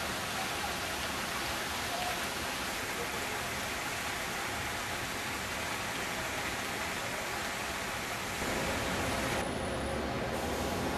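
Many small fountain jets splashing into a shallow pool: a steady hiss of falling spray. About eight seconds in it gives way abruptly to a lower, slightly louder steady rumble.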